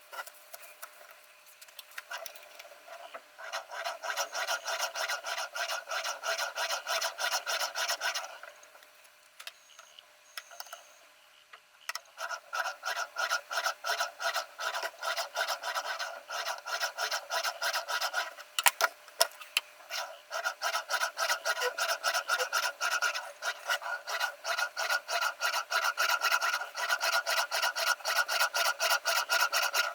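A sharpening stone on a Ruixin Pro RX-008 guided sharpener rasping in quick, even back-and-forth strokes along the steel edge of a HEZHEN VG10 Damascus chef knife. The strokes stop for a few seconds near the middle, then resume.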